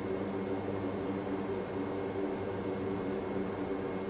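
Turboprop engines of an HC-130J Combat King II running at a steady pitch, heard inside the cockpit as an even hum.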